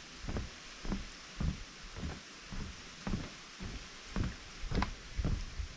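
Footsteps on a wooden boardwalk: a steady walking pace of about two dull knocks a second on the planks.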